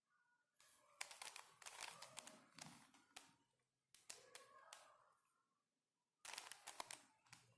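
Plastic 5x5 Ultramorphix twisty puzzle having its layers turned by hand: faint clicking and clacking in three short spells with pauses between.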